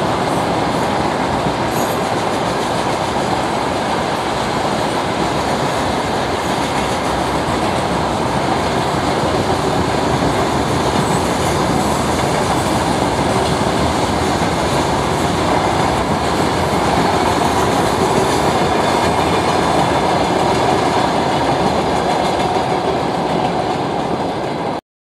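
Freight train of covered hopper wagons rolling past, a steady loud noise of wheels running over the rails. It cuts off suddenly near the end.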